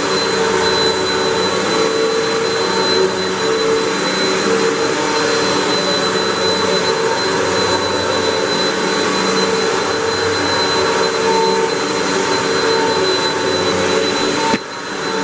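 Hoover WindTunnel 3 Pro Pet upright vacuum running steadily as it vacuums: a dense rush of airflow with a thin high whine on top. The sound drops briefly near the end.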